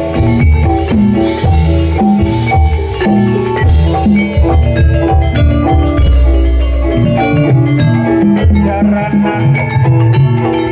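Live gamelan accompaniment for a jathilan trance dance: struck bronze metallophones ring out a fast repeating melody over drum strokes, with a long deep note about six seconds in.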